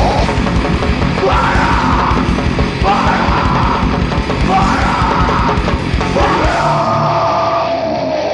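A hardcore band playing live: loud distorted guitars and drums under a vocalist yelling four short shouted lines, the last one drawn out and sliding down in pitch.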